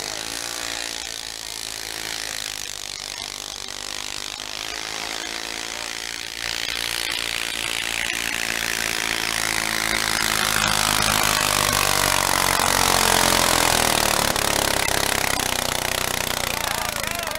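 Modified garden tractor's engine running flat out under load while pulling a weight-transfer sled. It is steady, with a step up in loudness about a third of the way in, and is loudest a little past the middle.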